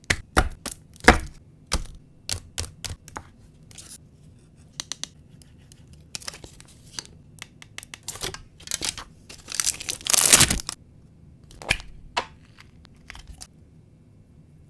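Packaging being torn open and crinkled by hand: a run of sharp crackles and snaps, with one longer, louder tear about ten seconds in.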